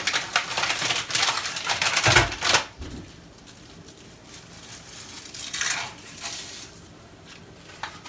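Packaging of frozen puff pastry sheets rustling as it is opened and sheets are pulled out, with two dull knocks about two seconds in. Quieter handling follows, with one more short rustle near six seconds.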